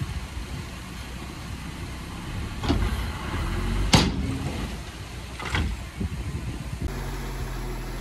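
Heavy diesel earthmoving machinery running with a steady low rumble, broken by three sharp metallic clanks, the middle one the loudest. Near the end the engine settles into a steadier, more even hum.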